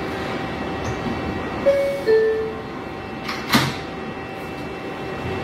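New York City subway car's door chime, a two-note descending 'bing-bong', followed about a second later by the doors shutting with a sharp knock, over the steady hum of the train standing in the station.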